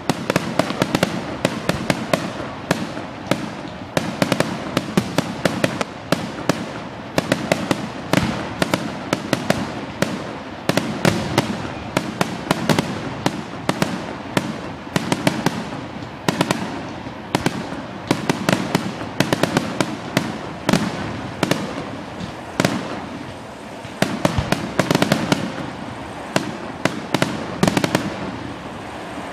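Fireworks display: a continuous barrage of aerial shell bursts, several sharp bangs and crackles a second, easing off near the end.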